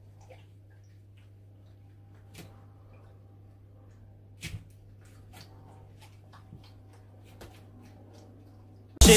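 Faint room tone with a steady low hum and a few soft, scattered knocks and taps, the loudest about halfway through. Loud electronic dance music cuts in suddenly at the very end.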